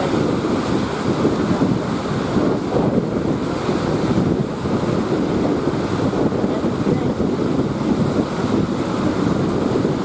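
Heavy surf breaking and washing in one continuous rush, with wind buffeting the microphone.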